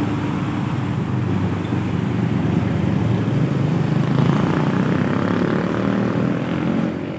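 Diesel tour bus passing as it climbs the hill, its engine running under load with a steady heavy drone that grows louder around the middle and fades near the end.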